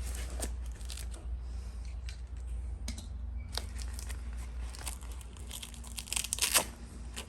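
Short ripping and rustling noises of fabric door-bag straps being pulled and fastened, several in a row, the loudest cluster near the end.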